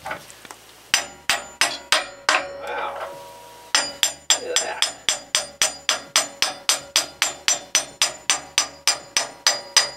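Small hammer striking a steel bolt held as a drift punch, driving a loader cylinder's mounting pin out: a handful of quick metallic blows, a short pause, then an even run of taps at about four a second, each with a brief ring.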